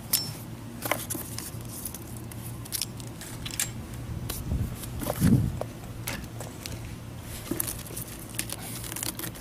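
Handling noise: scattered light clicks and crinkles as a straight razor in a clear plastic sleeve is put down and a plastic-wrapped patch is picked out of a cardboard box. A dull low bump comes about five seconds in.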